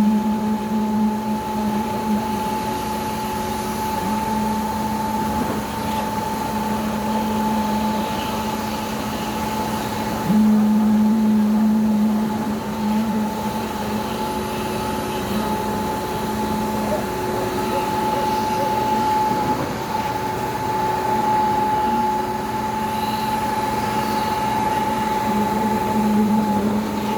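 Concrete pump truck running: a steady machine drone with a constant whine. A lower hum comes in suddenly about ten seconds in, drops away several seconds later and returns near the end.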